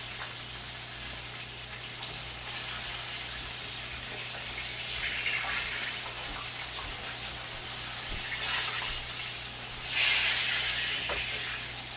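Pieces of red snapper frying in hot oil: a steady sizzle that swells louder about halfway through and again, more sharply, near the end.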